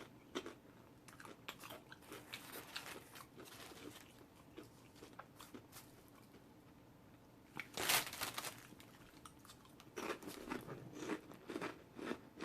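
Close-miked chewing and biting into a Subway rotisserie chicken sub sandwich: soft wet mouth smacks and crunches, with one louder crunch about eight seconds in.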